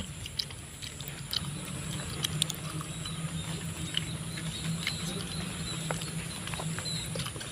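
A person eating cooked land snail (bekicot) in spicy-sweet sauce: small, scattered mouth clicks and smacks as he sucks the snail from its shell and chews, over a steady low hum.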